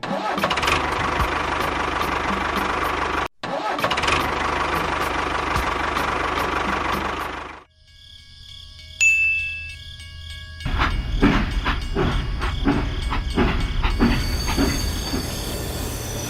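Small motor and machinery running: a dense steady mechanical noise that drops out briefly about three seconds in and stops near eight seconds, then after a quieter stretch a low engine-like rumble with rapid knocks.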